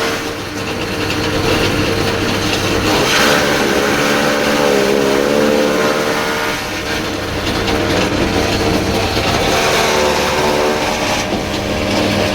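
Chaff cutter machine running steadily with a loud hum, a short burst of louder noise about three seconds in, and its pitch sagging briefly around the middle.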